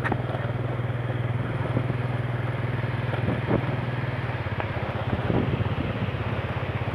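Automatic motor scooter's engine running steadily under way, a constant low hum with road noise.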